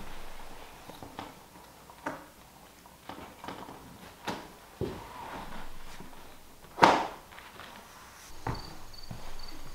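A thin strip of click-together engineered/laminate flooring being handled and fitted by hand at a door threshold: scattered light clicks and knocks of the plank against the floor, with one louder knock about seven seconds in.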